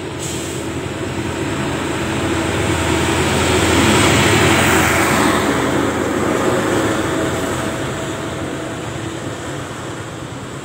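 A heavy truck hauling an excavator on a low-bed trailer passes by, its engine and tyre noise swelling to a peak about four seconds in and then fading away.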